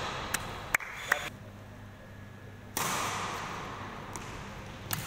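Badminton rally: a few sharp racket strikes on the shuttlecock and quick squeaks of court shoes about a second in, and another pair of sharp hits near the end.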